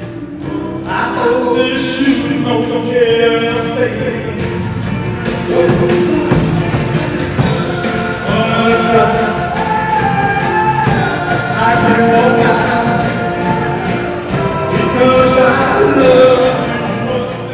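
A live rock-and-roll band playing with a singer over it.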